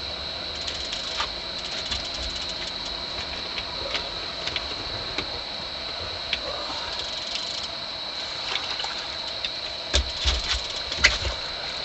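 Fishing reel and rod being worked while fighting a hooked fish: irregular faint clicks and rattles over a steady high-pitched hum, with a few heavier thumps and clicks near the end.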